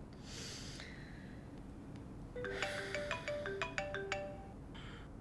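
Smartphone ringing with a marimba-style ringtone: a quick run of short mallet notes that starts about two and a half seconds in.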